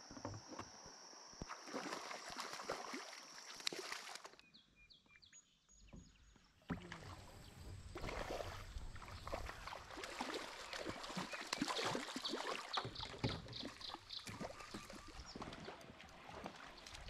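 River water splashing and lapping around a fishing kayak, with the splashes of a hooked trout thrashing at the surface. A quieter stretch comes a few seconds in.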